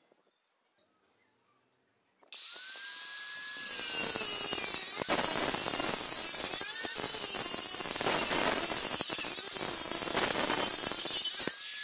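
Electric angle grinder starting up about two seconds in with a rising whine, then its cutting disc grinding through square steel tubing with a harsh, high hiss. Near the end the disc comes free of the cut and the motor begins to wind down with a falling whine.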